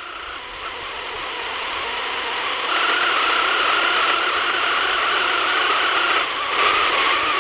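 Airbus A318 jet engines running, a loud rush with a steady high whine; the sound swells over the first few seconds, steps up about three seconds in, then holds.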